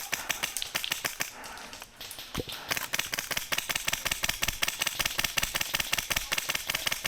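Airsoft guns firing rapid strings of shots: a fast run of sharp clicks, with a short break about two seconds in.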